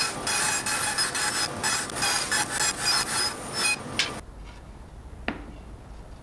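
Bandsaw resawing an oak board: a loud, rough rasping cut with a thin whine over it that ends abruptly about four seconds in as the board clears the blade. A low hum and a single sharp click follow.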